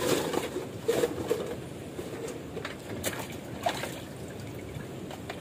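Water sloshing and trickling in a plastic basin as plastic bottles are rinsed by hand, with a few light knocks of plastic.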